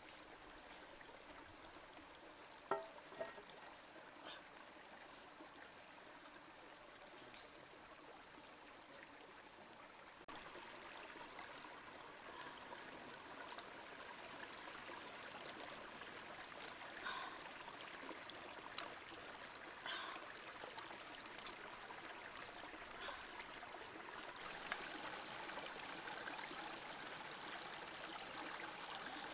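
A shallow stream trickling over rocks, faint and steady, with water poured from a scoop into a metal frying pan. A sharp knock about three seconds in is the loudest moment.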